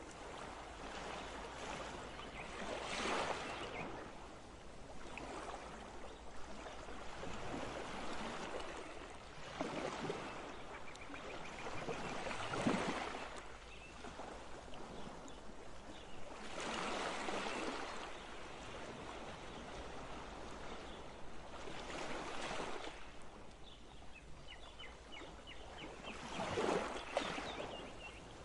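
Wet squid pieces being stirred and turned with a silicone spatula in a glass bowl: squelching, swishing strokes that swell every few seconds, loudest about 12 s in and near the end.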